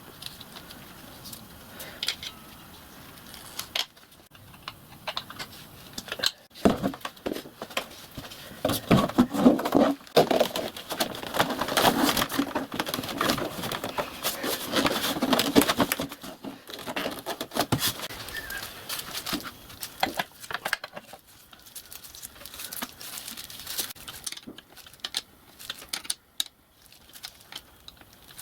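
Irregular handling noises: rustling with scattered clicks and light knocks of parts and tools being moved, busiest in the middle and thinning out near the end.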